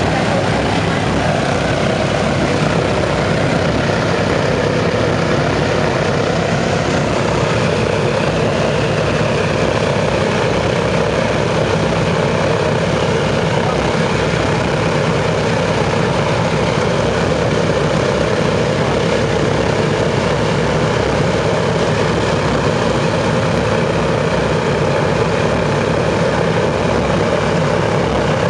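Boeing B-29 Superfortress's Wright R-3350 radial engines and propellers running steadily at low power, a loud, even rumble that does not change.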